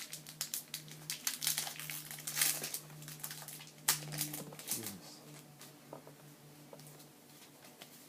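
Foil Pokémon booster-pack wrapper crinkling as it is torn open and handled, busiest in the first five seconds, then quieter.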